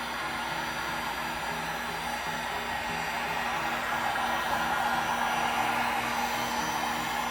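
Heat gun blowing steadily on freshly poured epoxy resin, pushing the white pigment into wave-like ripples. The rush of air gets a little louder around the middle and then eases back.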